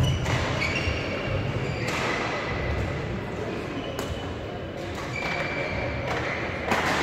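Badminton play in a large hall: a few sharp racket hits on a shuttlecock and short squeaks of sports shoes on the court floor, with hall echo.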